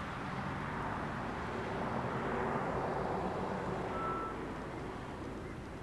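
A road vehicle passing, its noise swelling to a peak a couple of seconds in and then fading. A short, thin high note sounds once, about four seconds in.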